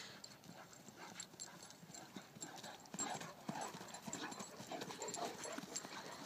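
Faint, irregular patter and thuds of dogs' paws galloping across grass.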